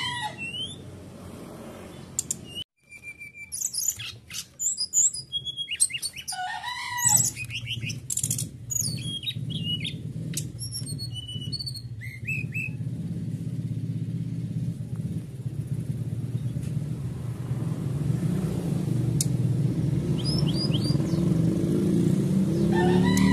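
Brown-chested jungle flycatcher (SRDC) singing a varied run of short, high chirps and whistles, densest in the first dozen seconds, with a few more calls near the end. A low rumble builds steadily underneath from about seven seconds in.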